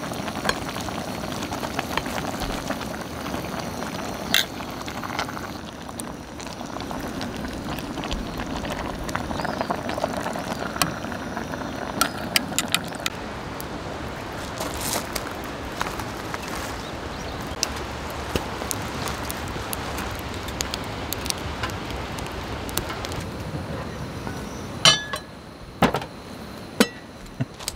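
Pork braising in a covered pot, bubbling and sizzling in the juices it has let out, so the waterless method has turned watery; scattered metal clinks of utensils come through. Near the end the bubbling falls quieter and a few sharp knocks are heard.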